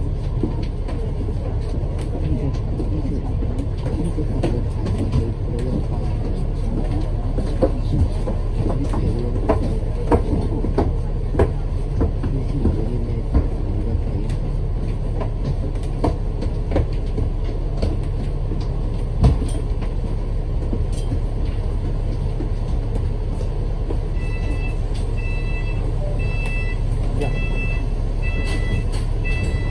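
Cabin of a moving Long Win double-deck bus: a steady low drone of engine and road noise, with body panels and fittings rattling and knocking over bumps. About 24 s in, a repeated electronic beep begins and keeps sounding in short pairs to the end.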